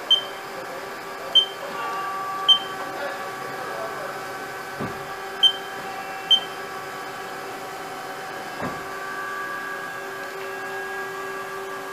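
2007 Haas SL20T CNC lathe running, a steady machine whine made of several held tones. Five short, sharp, high-pitched clicks come in the first six or so seconds.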